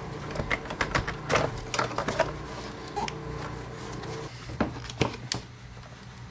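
Irregular plastic clicks and knocks as a Jeep JK's under-hood fuse box is unclipped, lifted and handled, over a steady low hum that stops about two-thirds of the way through.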